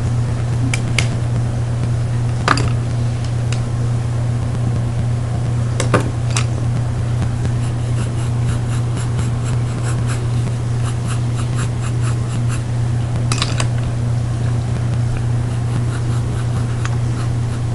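A steady low hum, with light scratches and ticks of a pen stroking paper, thickest around the middle.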